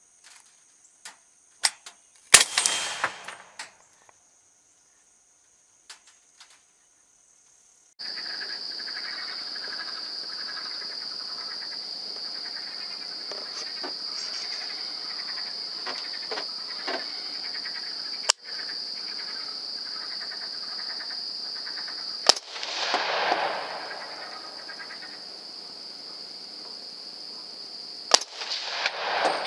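A .300 Blackout rifle firing: a loud, sharp shot about two seconds in, then a steady high-pitched drone of insects, with two more sharp shots about twenty-two and twenty-eight seconds in.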